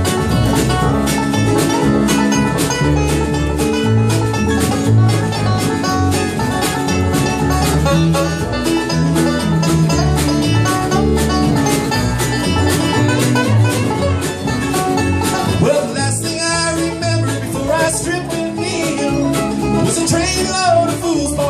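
Bluegrass string band playing an instrumental break: rapid five-string banjo picking over mandolin, acoustic guitar and upright bass. The texture changes about 16 seconds in.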